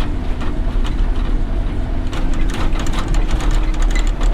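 Motor grader's diesel engine running, heard from inside the cab as it drives, with a steady low drone and frequent irregular rattling clicks from the machine.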